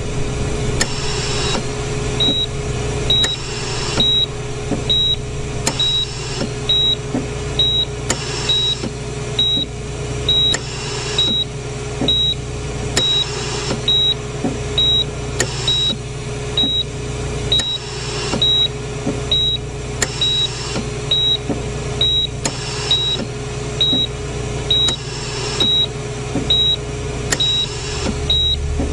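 Hospital bedside patient monitor beeping with the heartbeat: a short high beep a little under once a second, starting about two seconds in, over a steady hum and a soft rushing swell every two to three seconds.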